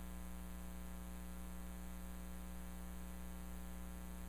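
Steady electrical mains hum, a low buzz with many evenly spaced overtones that holds unchanged throughout.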